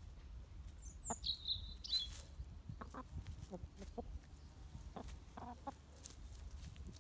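A flock of chickens clucking softly in short, scattered calls.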